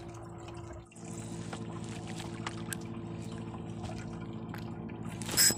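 A small fishing boat's motor running steadily, with water lapping against the hull. A brief sharp noise comes near the end.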